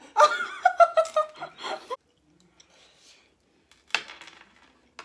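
A woman's high-pitched laughter, wavering, for about the first two seconds, then a shorter sound about four seconds in.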